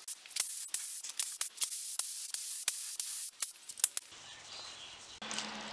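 Compressed-air gravity-feed spray gun hissing as it sprays a lacquer seal coat, in many quick spurts. It stops about four seconds in, leaving a quieter background with a low hum.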